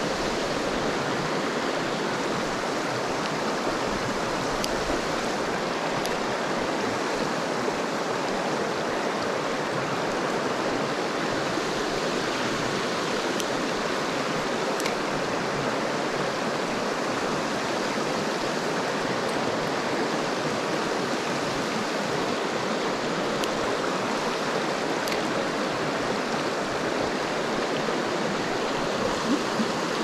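Mountain stream water flowing steadily, an even, unbroken rush of running water.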